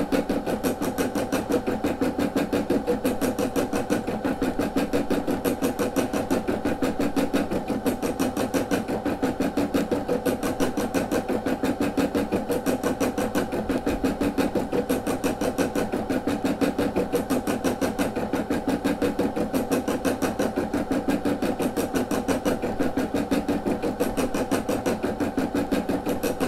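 Brother SE600 embroidery machine stitching out a design, its needle mechanism running in a fast, steady, even rhythm of strokes, fairly loud.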